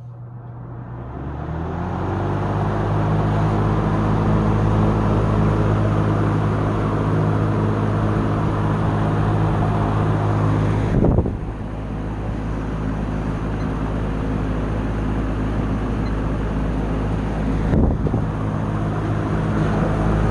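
Vintage Lakewood Deluxe window box fan with a GE motor, running on high: it speeds up over the first few seconds, its motor hum rising in pitch, then settles into a steady hum with a rush of air. There is a brief knock about eleven seconds in and another near eighteen seconds.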